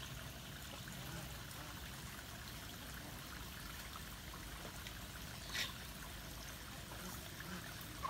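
Steady, faint water noise, like a trickle or light stream, with one short click about five and a half seconds in.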